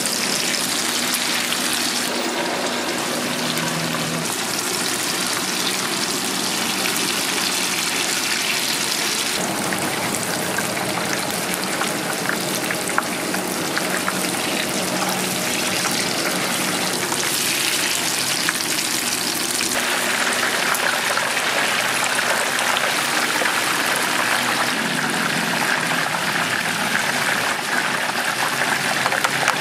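Hot oil sizzling steadily as food deep-fries. The hiss shifts abruptly in level and tone a few times.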